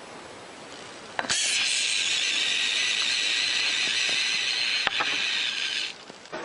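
An animal hissing: one long, loud hiss starting about a second in and lasting about four and a half seconds before it stops abruptly.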